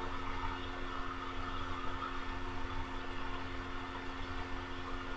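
Electric fans running with a steady low hum.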